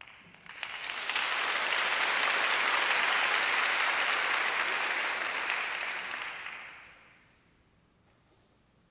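Audience applauding: the clapping swells within about a second, holds steady, then dies away about seven seconds in.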